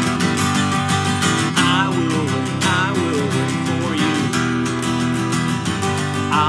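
Steel-string acoustic guitar strummed steadily, with a man's voice singing a few short held phrases over it.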